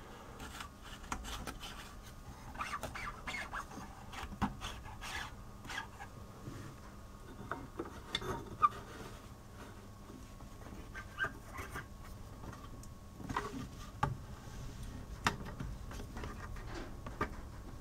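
Scattered clicks and light scraping from the front-panel knobs and rotary switches of a vintage valve oscilloscope being turned by hand, over a faint steady hum.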